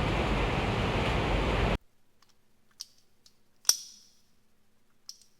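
Steady hiss of a water jet machine spraying, which cuts off abruptly about two seconds in. A few faint clicks follow, the sharpest with a short hiss about halfway through.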